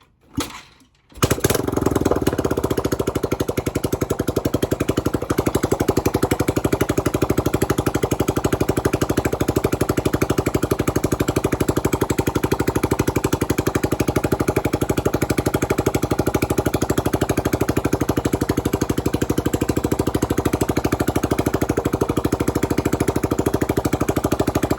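Yamaha 200cc motorcycle engine catching after a brief sputter about a second in, then running steadily with an even, rapid firing beat.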